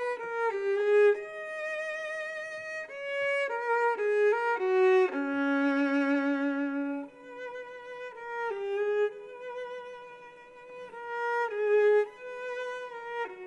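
Solo violin playing a slow, singing melody, one note at a time, with wavering vibrato on the long held notes and a few quicker note changes between them.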